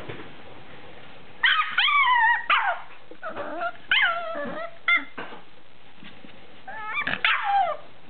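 Cairn terrier yipping and whining in short, high calls that slide down in pitch. They come in bursts: about a second and a half in, around four and five seconds in, and again near the end.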